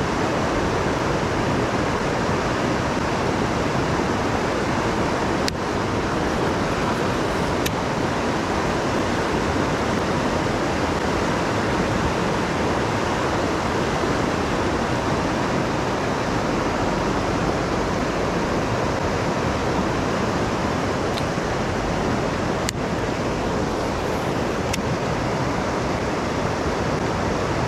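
River rapids rushing steadily over rocks: a constant, even hiss of white water.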